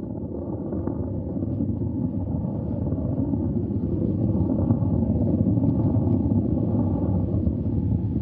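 Soyuz rocket's first stage, four strap-on boosters around the core stage, firing during ascent: a steady, low, dense engine noise that grows a little louder over the first few seconds.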